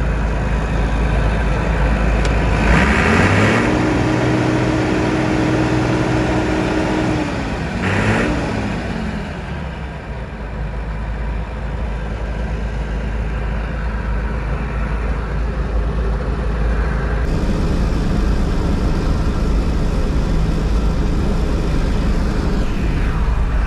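Perkins diesel engine of a 1980s Massey Ferguson 850 combine running just after its first start in years. It is revved up about three seconds in, held for a few seconds, let back down, given one short blip, then settles to a steady idle.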